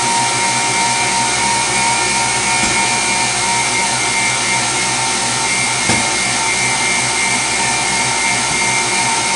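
Stand mixer running steadily at high speed, whisking eggs and sugar into a thick, airy cake batter: a continuous motor whine. A small knock about six seconds in.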